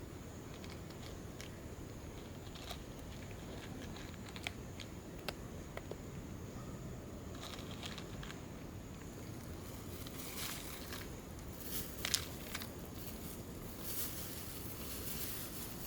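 Cat chewing food: scattered small clicks and crunches, thickening into denser crunching over the last several seconds.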